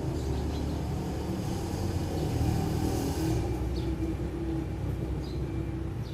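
Steady low rumble of road traffic, swelling around the middle, with a few faint short chirps.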